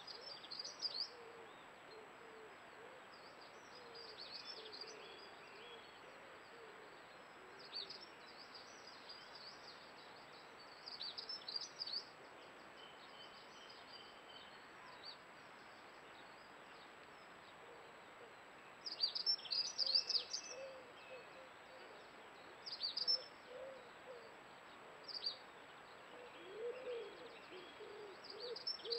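Dawn birdsong: several birds singing in bursts of high, quick twittering, loudest about two-thirds of the way through. Soft, low calls recur now and then beneath it.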